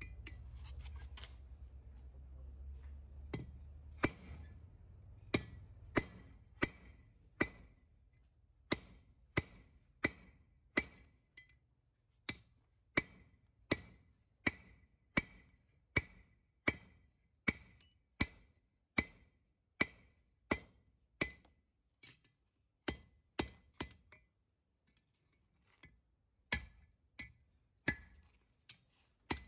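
Hand hammer striking a steel horseshoe held in tongs on an anvil, a steady run of ringing blows about one and a half a second as the shoe is shaped over the horn. The blows pause briefly near the end, then resume.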